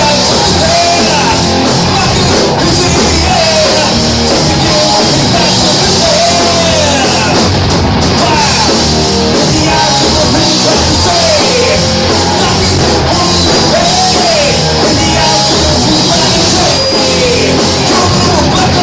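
Live heavy metal band playing loud: distorted electric guitars over a drum kit, with a lead line of bent notes sliding up and down.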